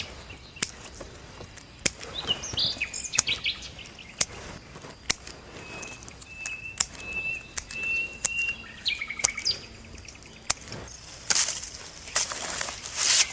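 Small birds chirping and calling, with short gliding calls and a high held note in the middle, over scattered sharp clicks; near the end, loud bursts of rustling.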